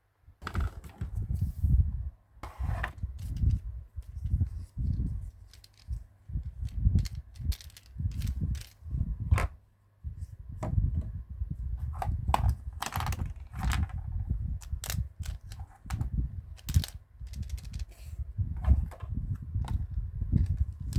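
Close-miked handling of a plastic toy cash register and its packaging: irregular taps, clicks, knocks and rustles, with a short pause about ten seconds in.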